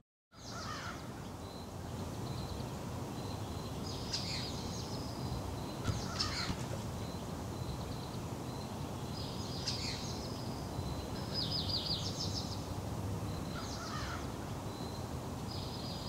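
Faint outdoor ambience: a steady low rushing background with about six short, scratchy bird calls, a second or two apart, starting about four seconds in.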